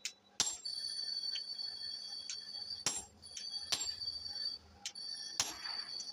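Hammer blows on a handled forging tool set on red-hot steel over an anvil: four heavy strikes with a few lighter taps between, each leaving the steel ringing with a high, lingering tone.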